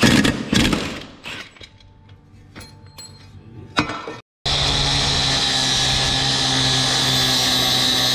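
Knocks and metal clattering from hand tools, then after a cut a machine running steadily with a low hum and a strong high hiss.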